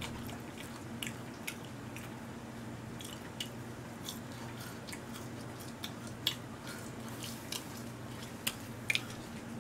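Faint, close-up chewing of french fries with small scattered mouth clicks and smacks, over a steady low hum.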